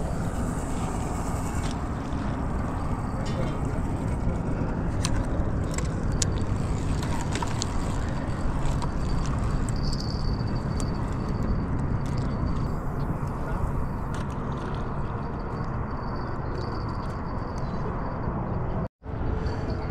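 Steady low rumble of wind buffeting the microphone, with a few faint clicks from the rod and reel being handled.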